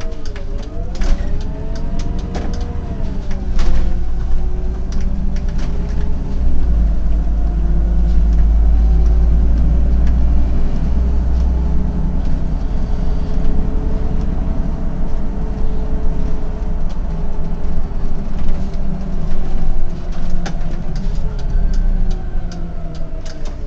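Autosan M12LF CNG city bus engine heard from the driver's cab: it pulls away with the pitch rising and dipping through gear changes in the first few seconds, settles into a steady drone at cruising speed, then falls away as the bus slows near the end. Scattered clicks and rattles at the start and near the end.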